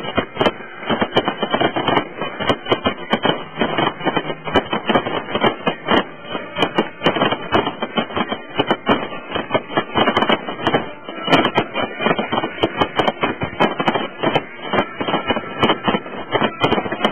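Fireworks display: many shells bursting and crackling in rapid, overlapping succession, with no break. Music plays along with the bursts.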